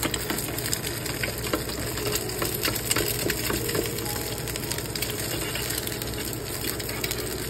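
Egg frying in oil in a small pan, a steady sizzle with many small crackles, while a slotted turner works around the egg.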